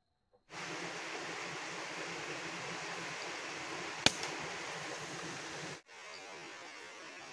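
A single air rifle shot, one sharp crack about four seconds in, over a steady background hiss. The hiss cuts out for a moment near six seconds and comes back a little quieter.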